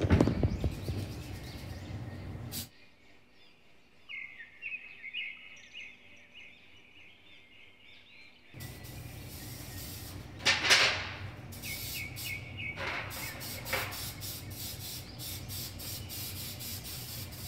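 Short hissing bursts of an aerosol cooking-spray can greasing a cake pan, the loudest about two-thirds of the way in. Before them comes a clatter at the start, then a quiet stretch with faint high chirping.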